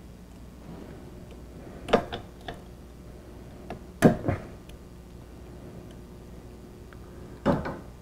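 Hand tools clanking on the front wheel hub and axle nut of a car: a few sharp metal knocks, about two, four and seven and a half seconds in, with lighter clicks between.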